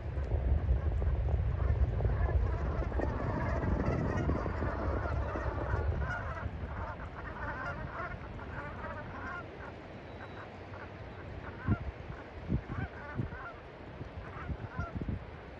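A flock of Brant geese calling: many short, overlapping calls, densest in the first half. Under them a low rumble, loudest for the first few seconds, and a few sharp low thumps about three-quarters of the way through.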